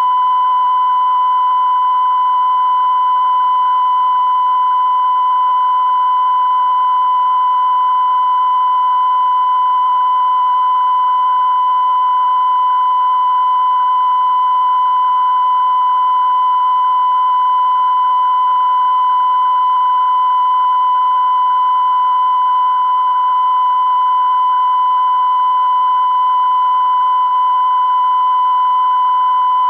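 Steady test-card tone from Soviet Central Television's off-air transmission: one unbroken high-pitched beep held at a constant level, with a faint hum and hiss underneath. It marks the end of programming, with only the UEIT test signal on air.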